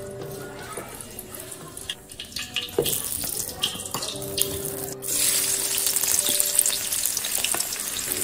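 Fat sizzling in a steel wok while a wooden spatula stirs and scrapes against the pan. About five seconds in, a louder, denser sizzle sets in as sliced shallots fry in the fat.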